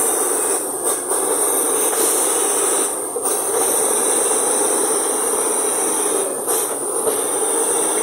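Komatsu D85ESS-2 crawler bulldozer working: its diesel engine runs steadily under load while the steel tracks grind and squeal as the machine moves. There is a constant high hiss, with brief dips in level about a second in, at three seconds and near six and a half seconds.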